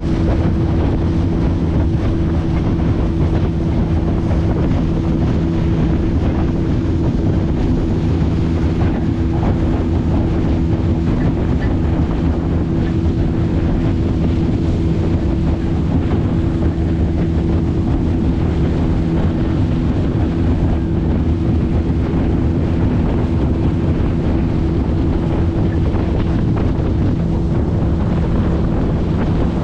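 Boat engine running at a steady pitch while under way, with wind buffeting the microphone.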